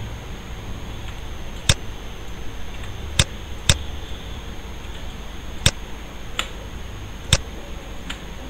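Half a dozen sharp single clicks of a computer mouse at uneven intervals, over a steady low room hum and a faint high electrical whine.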